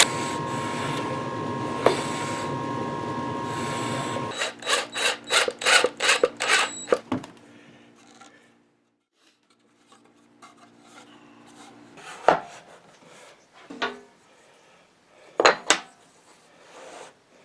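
A power tool runs steadily and shuts off about four seconds in. Then come quick back-and-forth rasping strokes on wood, about four a second for a few seconds, and later a few light knocks of wood being handled.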